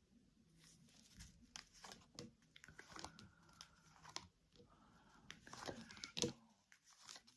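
Tarot cards handled on a table: faint rustling and a scattered run of light card clicks and snaps.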